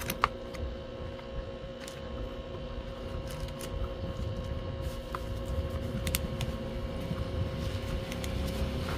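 Steady low background hum with a faint constant tone, and a few light clicks and rustles of a small metal motorcycle part and its packaging being handled.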